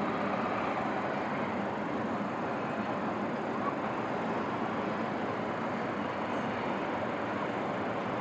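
Steady, even hum of city traffic heard from afar, with no single vehicle or event standing out.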